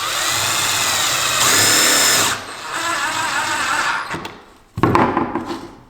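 Cordless impact driver spinning up and driving a self-drilling screw through PVC pipe into plywood, in two runs of a couple of seconds each with the motor pitch rising and falling. A brief loud sound follows near the end.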